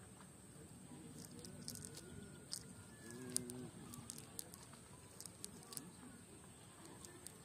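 Faint rustling and scattered light clicks of a cast net being handled and straightened out on grass, with faint bird calls in the background.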